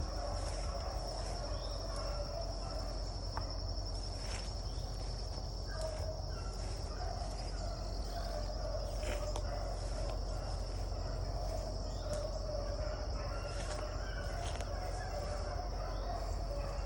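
A pack of beagles baying at a distance while running a rabbit track, their voices coming and going in overlapping stretches. A steady high-pitched insect drone runs underneath.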